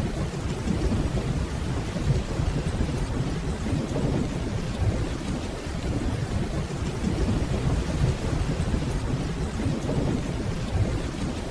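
Steady heavy rainfall with a continuous low rumble of distant rolling thunder underneath.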